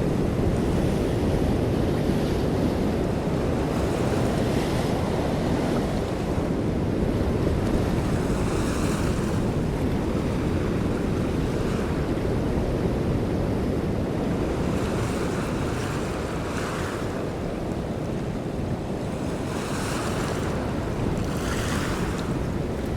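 Open sea heard from a boat: a steady low rush of wind buffeting the microphone, with waves splashing now and then, most often in the second half.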